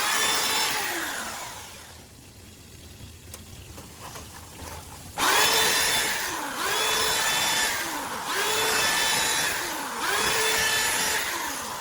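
Electric drain-cleaning machine spinning its cable in a clogged kitchen drain pipe, the motor surging over and over, its pitch dipping and recovering about every second and a half as the cable loads and frees. It drops to a low hum about two seconds in and starts up sharply again some three seconds later.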